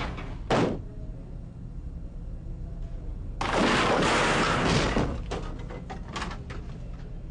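Office crash: a short burst of noise just after the start, then about three and a half seconds in a loud rush of noise lasting about a second and a half as a white office object flies in, followed by a run of smaller knocks and rattles as things land and settle.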